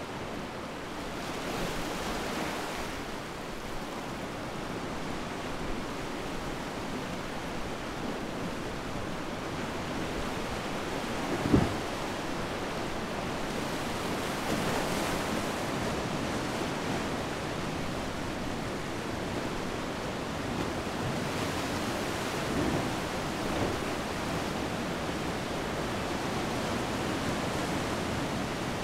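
Steady wash of sea surf and wind, with wind on the microphone and a few gentle swells. One short sharp thump about halfway through.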